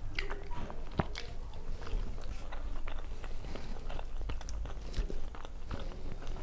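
A person chewing a mouthful of rice and fried, battered vegetables close to a clip-on microphone: many small wet clicks from the mouth, with one sharp click about a second in, over a low steady hum.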